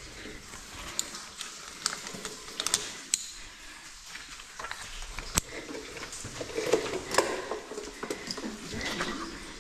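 Scattered, irregular clicks, knocks and scuffs of a person moving about and handling gear, with one sharp click about five and a half seconds in.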